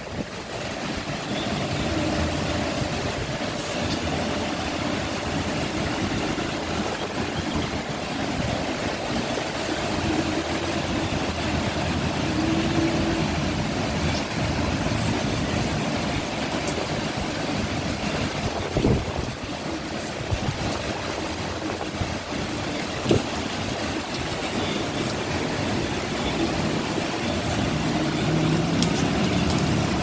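Steady rain falling over a paved courtyard, with a low mechanical hum underneath and a couple of sharp knocks in the second half.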